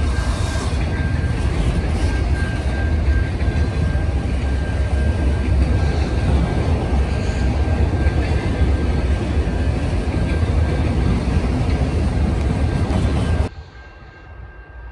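Freight train of autorack cars rolling past, a steady heavy rumble of wheels on rail. It cuts off suddenly near the end, leaving a much quieter background.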